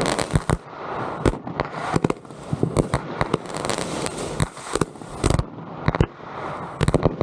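Consumer fireworks going off: a rapid, irregular string of sharp bangs with crackling between them.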